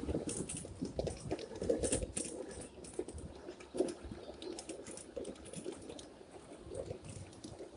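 Wheels of a ride-on 7.5-inch-gauge backyard train clicking and rattling over the rail joints, an irregular light clatter that is heavier in the first couple of seconds.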